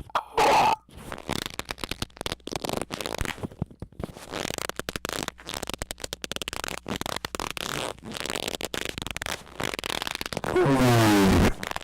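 Loud, distorted squeaks: a short one just after the start and a longer one falling in pitch near the end. Between them runs a long stretch of rapid crackling clicks.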